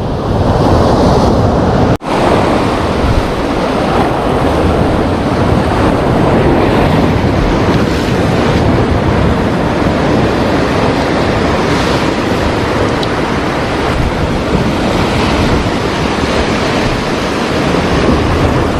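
Heavy sea surf breaking and washing against the shore in a steady loud rush, with wind buffeting the microphone. The sound drops out for an instant about two seconds in.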